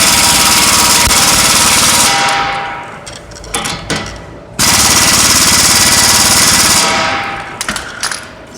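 Harbor Freight half-inch drive air impact wrench hammering nuts down onto countersunk plow bolts, powered from a compressor set to about 120 psi. It runs in two loud bursts a couple of seconds apart, each winding down as the trigger is let go.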